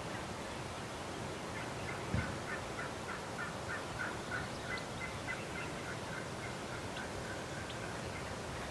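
Gould's wild turkey calling: a long, even run of quick notes, about four a second, lasting some six seconds. A single low thump comes about two seconds in.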